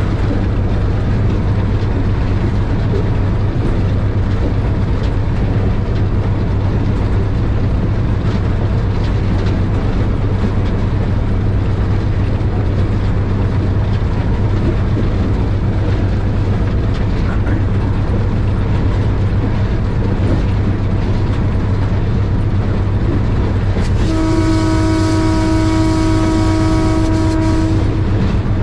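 Passenger train running along the track with a steady, loud rumble. Near the end the locomotive's horn sounds one steady blast of about four seconds.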